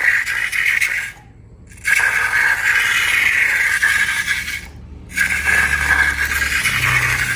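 Scraping and rattling of small hard bits in a container during slime-making, in stretches broken by two short quiet gaps.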